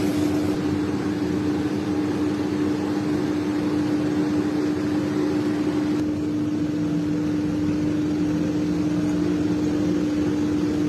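Steady machine hum with a constant low tone, from kitchen equipment running while the dish cooks.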